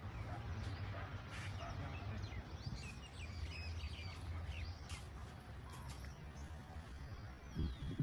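Small birds chirping, many short quick calls, over a steady low rumble, with a brief low knock near the end.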